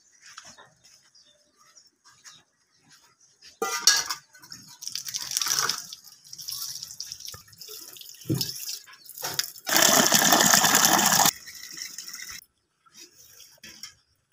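Water from an outdoor tap running into a steel mug and splashing onto a concrete slab, in several short gushes. The loudest and longest gush comes about two-thirds of the way through and lasts about a second and a half.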